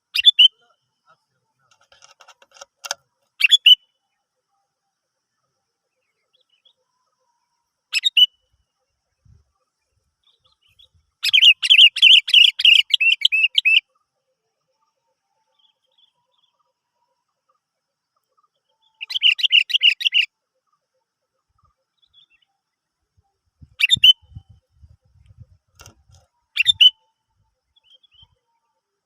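Sooty-headed bulbul (kutilang) calling: single short notes now and then, and two bursts of rapid chattering calls, each one to three seconds long, about eleven and nineteen seconds in.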